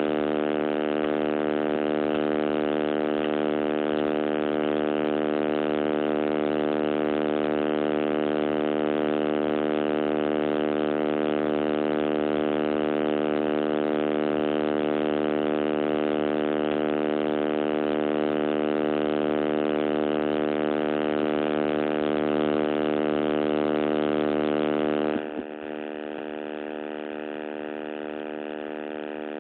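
Loud, steady electrical buzz from a damaged recording microphone, a hum with many even overtones; about 25 seconds in it drops in level and carries on quieter.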